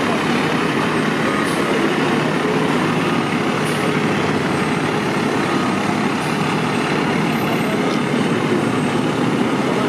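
Fire truck's diesel engine running steadily.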